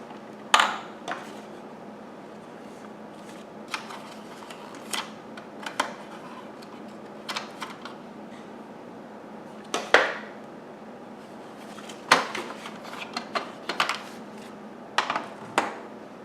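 Vacuum cleaner attachments and parts being handled and set down: irregular clacks and knocks, the loudest about half a second in, near ten seconds and near twelve seconds.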